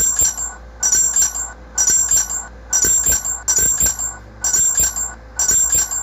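An emergency alert alarm sound made of short, bright jingling bursts, like keys being shaken, repeated about once a second.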